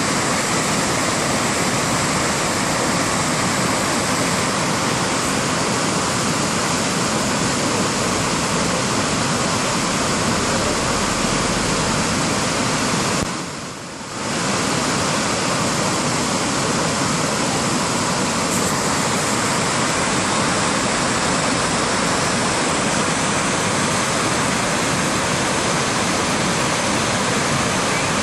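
Steady rushing of whitewater rapids on a river in flood, swollen by rain and snowmelt. The sound briefly drops away for about a second roughly halfway through, then returns.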